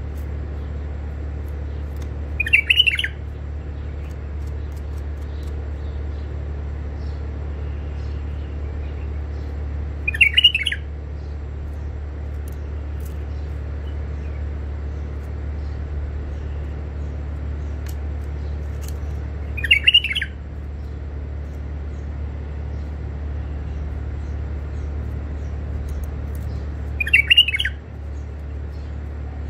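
White-eared bulbul giving four short calls spaced several seconds apart, each a quick cluster of notes, over a steady low hum.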